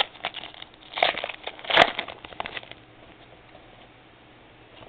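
Foil trading-card pack wrapper crinkling and cards being handled: a few sharp crackles in the first two seconds, then scattered light ticks, then it goes quiet.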